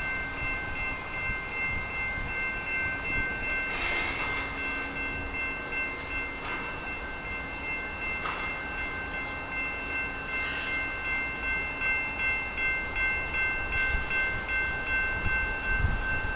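Low rumble of an approaching freight train, growing louder near the end, under several steady high-pitched tones.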